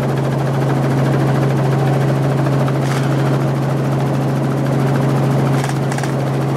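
Helicopter in flight heard from inside the cabin: a steady low drone from the rotor and engine with a broad rushing noise over it, unchanging throughout.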